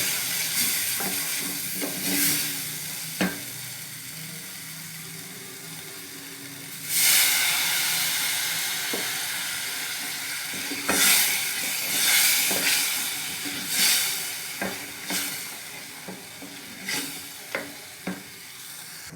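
Onion-tomato masala sizzling in hot oil in a pan while a spoon stirs and scrapes it, with short knocks of the spoon against the pan. About seven seconds in the sizzle suddenly surges louder as water goes into the hot pan, then slowly dies down.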